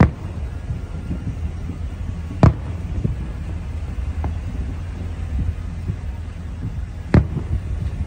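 Aerial firework shells bursting at a distance: a sharp boom at the very start, another about two and a half seconds in and a third about seven seconds in, with a fainter pop around four seconds, over a steady low rumble.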